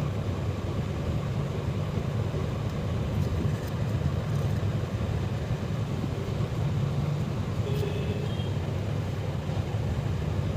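Steady low rumble of background noise with no speech, and a brief faint tone about eight seconds in.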